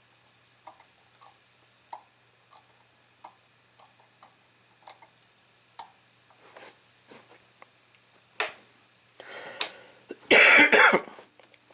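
Faint, evenly spaced ticks, a little under two a second, then a single sharp click, and a loud cough near the end.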